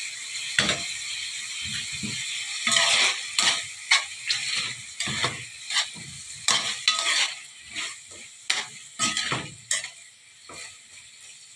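Chicken livers and sliced peppers sizzling in an aluminium pan as a metal spoon stirs them, repeatedly scraping and knocking against the pan. The sizzle is strongest over the first few seconds and then fades.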